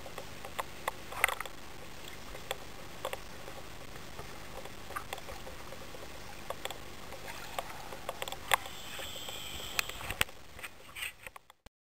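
Small sea waves lapping and slapping against a camera held at the water's surface: a steady wash of water with frequent sharp, irregular splashes. The sound cuts off suddenly near the end.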